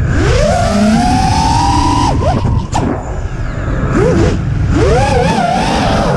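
Electric motors of an FPV quadcopter whining. The pitch sweeps up in the first two seconds, drops off, then rises and falls again with the throttle, over a steady rush of wind and propeller wash on the onboard camera's microphone.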